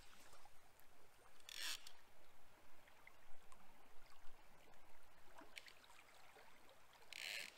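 River water running over a shallow riffle, steady and fairly faint, with two short hisses, one about a second and a half in and one near the end.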